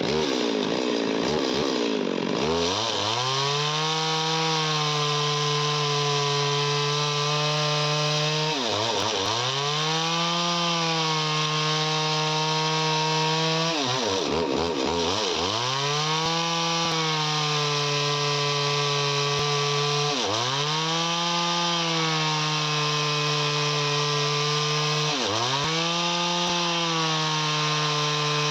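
Two-stroke chainsaw running at high revs through wood. Its engine note dips sharply and climbs straight back five times, about every six seconds.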